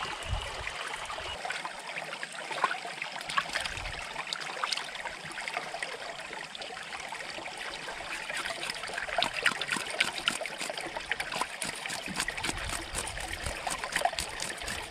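Shallow river water trickling and splashing as a fish is washed and rubbed by hand at the water's edge, with many small splashes that grow busier in the second half.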